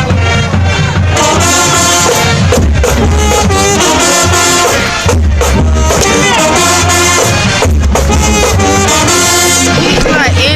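High school marching band playing a short, loud brass tune: trumpets and trombones over a strong, steady low bass line, with a few sharp hits.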